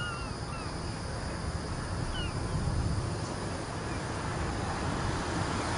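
Steady outdoor ambience with a low rumble, and a few short falling bird calls near the start and again about two seconds in.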